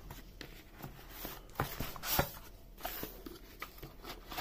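Cardboard packaging being handled by hand: quiet scrapes and a few light taps and clicks as the box's sleeve, insert and lid are slid and pulled open.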